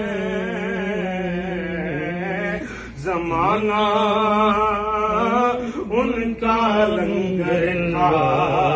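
Sufi zikr chant: male chanting in long, held notes, with a brief break about three seconds in before the voices glide up back into the chant.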